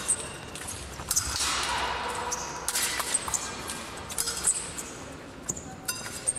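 Épée blades clicking and clashing, and fencers' feet stamping on the piste during a bout, with some clashes leaving a brief metallic ring, over the general noise of a fencing hall.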